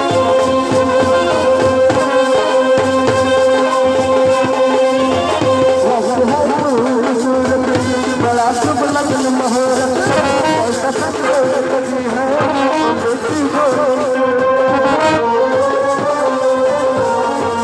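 Indian brass band playing a melody on horns, mostly long held notes, with a busier, wavering run of melody about halfway through.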